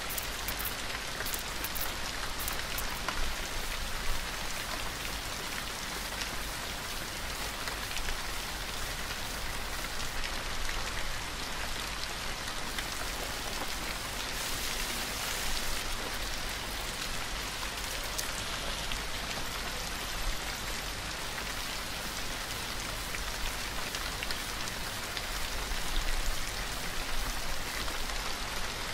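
Steady rain: an even hiss with many small drop ticks, over a low rumble.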